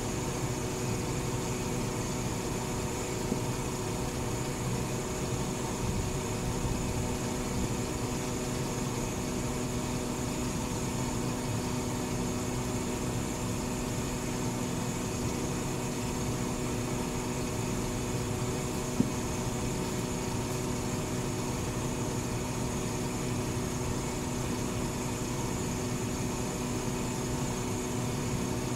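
Garbage truck's diesel engine idling, a steady hum with a few steady tones in it. Once, past the middle, a single sharp tap.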